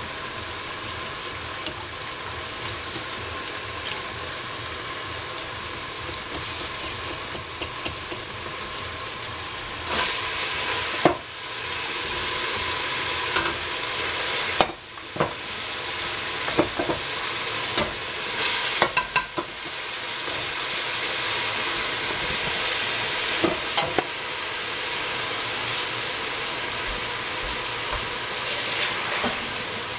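Potato frying in a hot pan, sizzling steadily. Through the middle, a utensil stirs, scrapes and knocks against the pan several times.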